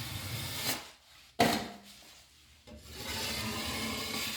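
Drywall knife scraping joint compound across a taped wall seam: three strokes, the last the longest and steadiest.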